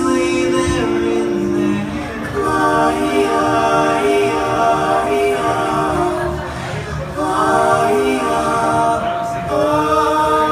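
Live band music through a club PA: sustained, layered chords changing every second or so, with a singing voice over them.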